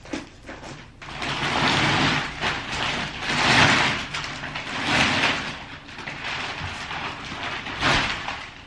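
Plastic wrapping crinkling and rustling as it is stripped off a rolled rug and bunched up, in several loud swells.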